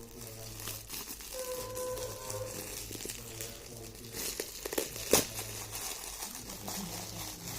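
Gift wrapping being torn open and crumpled by hand: irregular crinkling and tearing, with one sharper snap about five seconds in.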